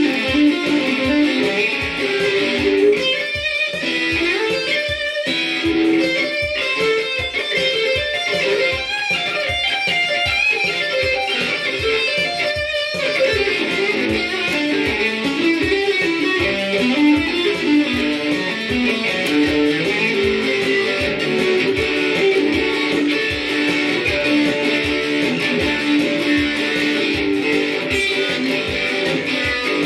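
Stratocaster-style electric guitar improvising in D major, playing runs of single notes with a steady beat underneath.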